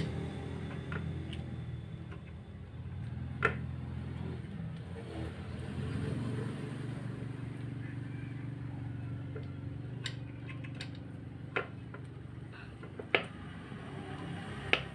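A few sharp metal clinks and knocks from a dismantled Suzuki Multicab manual transmission being handled, its aluminium case and gear shafts, spread over several seconds above a steady low hum.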